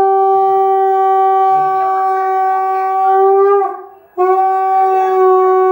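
Conch shell (shankha) blown in long, steady blasts on one pitch, sounded at a Hindu ritual. The first blast breaks off about three and a half seconds in, and a second begins just after four seconds.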